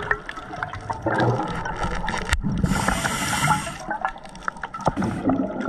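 Scuba regulator breathing underwater: gurgling and clicking, with a loud rush of exhaled bubbles about halfway through.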